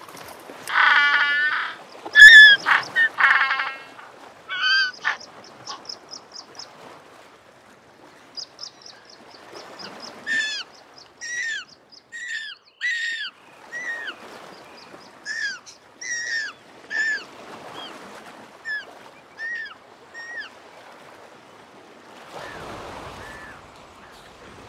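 African penguins calling with donkey-like braying notes: loud calls in the first few seconds, then a spaced run of short calls that slide downward in pitch.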